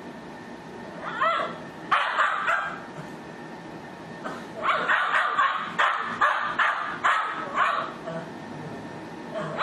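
Cavalier King Charles Spaniel yelping and whimpering in short high cries while it scratches frantically at its neck, with a quick run of about eight yelps around the middle. The scratching fit is shown as a symptom of the breed's inherited Chiari-like malformation.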